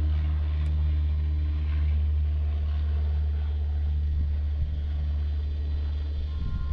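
Steady low mechanical drone with an even hum and no breaks or changes in pitch.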